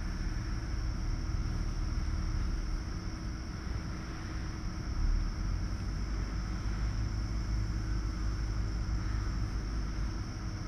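Steady low mechanical hum and hiss of a farrowing barn, with a faint constant tone, swelling briefly about halfway; no grunts or squeals stand out from the sleeping piglets and sow.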